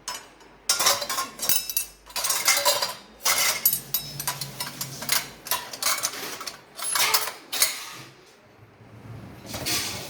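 Dishes, cutlery and the dishwasher's wire racks clattering and rattling as they are handled, in repeated bursts of clicks and clinks, with a quieter stretch near the end.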